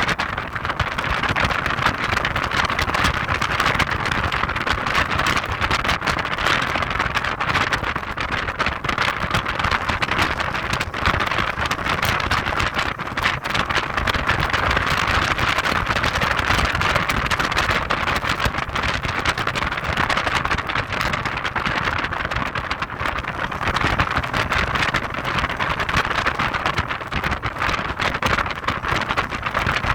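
Heavy wind noise on the microphone of a moving Audi TT 225 roadster: a loud, steady rushing that drowns out the car's engine.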